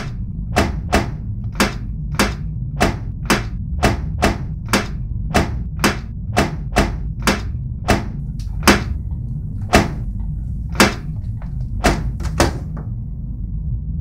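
Sharp knocks repeating about two a second at an uneven pace, stopping about twelve and a half seconds in, over a steady low droning rumble.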